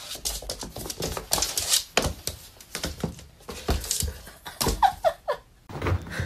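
A small toy skittering and clicking across a hardwood floor as a kitten bats it about: a run of quick, irregular clicks and taps, with three short squeaks just before the end.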